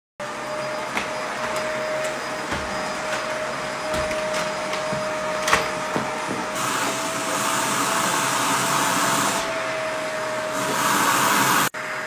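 Upright vacuum cleaner running with a steady motor whine over the rush of suction, with a few knocks as it is pushed about. The rush grows louder about halfway through and again near the end, then the sound cuts off suddenly.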